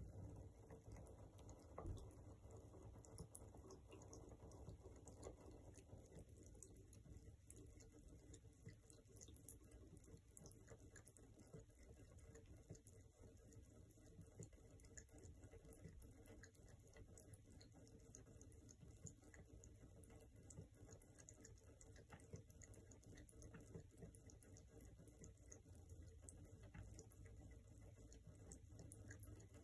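Near silence: the faint trickle of a thin stream of water running from a bathtub faucet into the tub, with scattered light ticks of a cat lapping at the stream.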